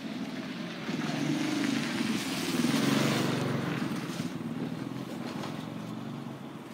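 A motor vehicle engine passing by, growing louder to a peak about three seconds in and then fading away.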